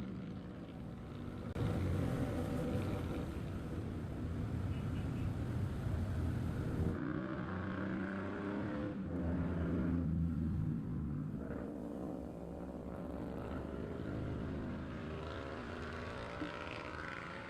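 Motor vehicle engines running and passing, a continuous rumble that rises and falls.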